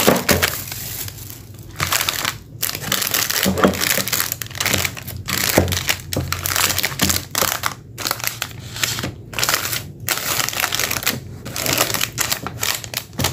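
Plastic ice-lolly wrappers crinkling as the frozen packets are handled and laid out on a table, in irregular bursts with a few brief pauses.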